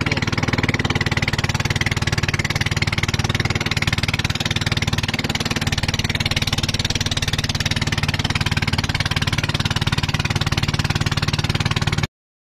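Small fishing boat's engine running steadily under way, with wind and water noise over it; the sound cuts off suddenly near the end.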